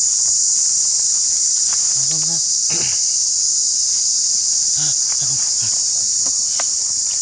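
Steady, loud, high-pitched drone of an insect chorus, with a few short faint calls breaking in about two, three and five seconds in.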